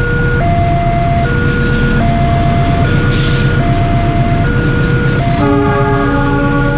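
Railway level-crossing warning siren sounding a two-tone alarm, switching between a lower and a higher tone about every 0.8 seconds, over a steady low rumble of a train. About five seconds in, a multi-note train horn sounds over the alarm.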